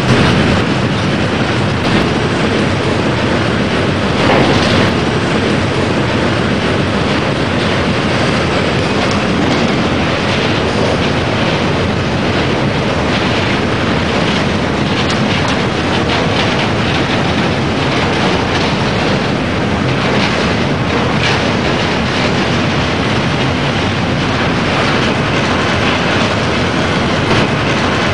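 A loaded freight train of double-deck car-carrier wagons rolling past, its wheels clattering steadily on the rails.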